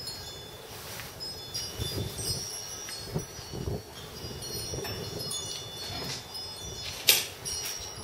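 Light, high metallic chiming: several ringing tones struck on and off, with a few low bumps in the middle and a sharp click about seven seconds in.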